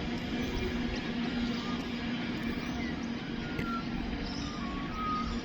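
Coal train rolling past, a steady rumble with a constant low hum running under it. A few short high chirps come in over it in the second half.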